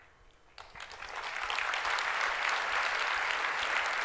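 Audience in a large hall applauding, starting about half a second in and swelling to steady full clapping within a second or two.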